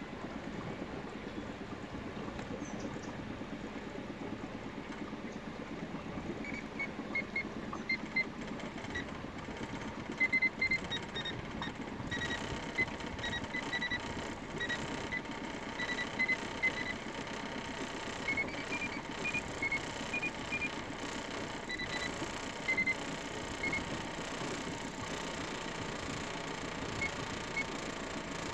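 Steady running noise of a small motorboat underway, with short high-pitched beeps or chirps scattered through it from a few seconds in.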